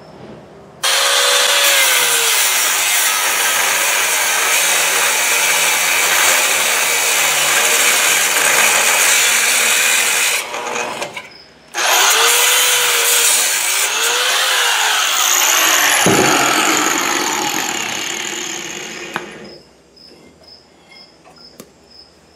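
Angle grinder cutting steel on a car's front suspension at the ball joint, in two long cuts of about ten and eight seconds with a short break between. The second cut ends with the grinder winding down.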